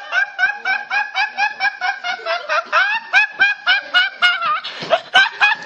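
A teenage boy laughing hard in a quick, even string of high-pitched laughs, about five a second, with a short breathy break near the end.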